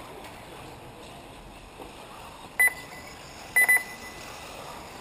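Electronic beeps: one short, high beep about two and a half seconds in, then two quick beeps about a second later, over a faint steady background.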